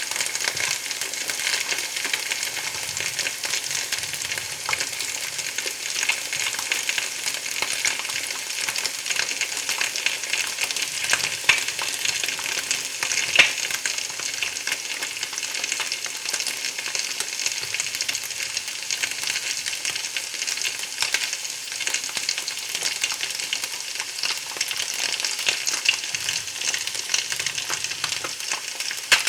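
Food frying in hot oil: a steady high sizzle with dense little crackles and a few sharper pops.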